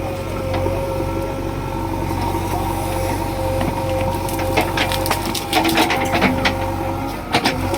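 JCB 3DX backhoe loader's diesel engine running steadily under work, with a run of sharp, irregular cracks and knocks starting about halfway through as the machine works material.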